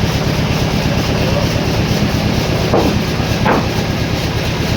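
Sawmill machinery running with a steady low hum and a rapid clatter, with two short sweeping whines about three seconds in.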